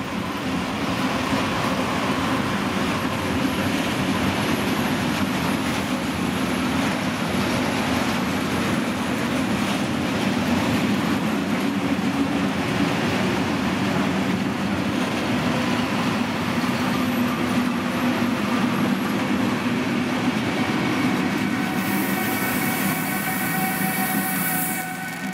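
Freight train of open wagons rolling past, a steady loud rumble and clatter of wheels on the rails. Near the end a Siemens ES64U4 electric locomotive passes close by, adding a high hiss and several steady whining tones.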